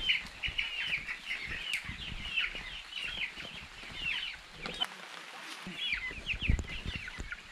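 A crowd of baby chicks peeping without pause in plastic transport crates: many short, high, falling chirps overlapping. Knocks and a thump of the crates being carried and set down, the loudest about six and a half seconds in.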